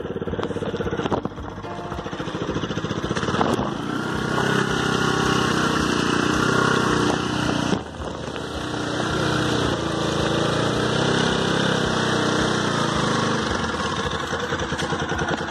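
Motorcycle engine running at low speed over rough grass, its note rising and falling with the throttle and dropping off briefly just before the middle.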